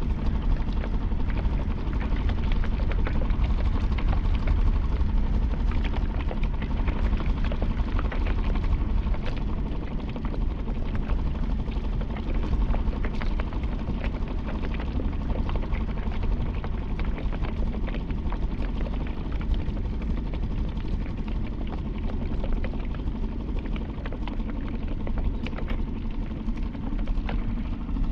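Small gasoline outboard motor running steadily at trolling speed, with a heavy low rumble throughout.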